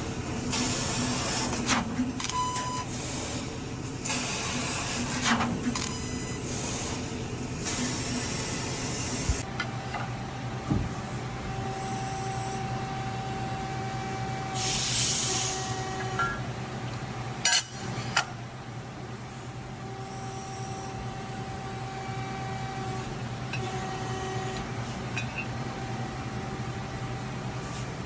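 CNC laser cutter cutting parts from 3/16-inch sheet: repeated short hissing bursts of assist gas over a steady machine hum for the first third, then quieter running with steady whining tones and another hiss burst. Two sharp clicks come a little past halfway.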